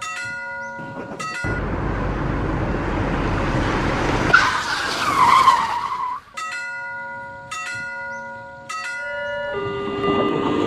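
Cartoon sound effects: a railroad crossing bell ringing in repeated strikes is cut off by a car's tire screech and skid lasting about five seconds. Then the crossing bell rings again, and a lower held tone comes in near the end.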